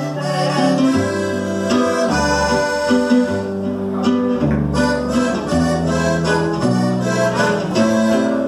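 Live band playing an instrumental passage: accordion carrying the melody over strummed acoustic guitar, with bass notes changing about once a beat.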